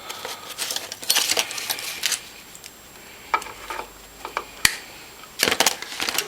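Metal hand tools and a power cord being handled on a workbench: a run of short scraping rustles and clinks, then scattered clicks with one sharp click about four and a half seconds in, and more rustling near the end.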